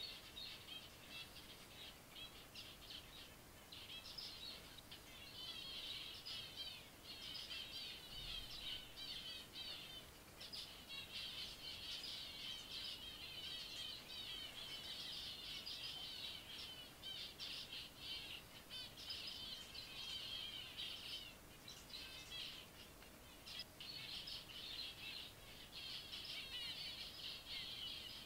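Zebra finches in an aviary flock calling and singing: dense, high, rapid chirps in bouts, with a few short gaps.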